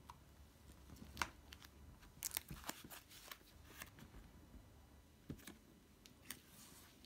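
Faint scattered clicks and taps of a Packard Bell Dot S netbook's plastic case being turned over and handled on a hard countertop, with a brief rustle near the end.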